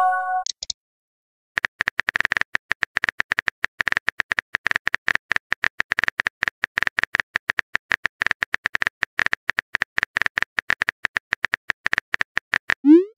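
Keyboard typing sound effect: a fast, uneven run of small clicks starting about a second and a half in and running almost to the end. The tail of a short message-notification chime fades out at the very start, and a quick rising swoosh begins right at the end.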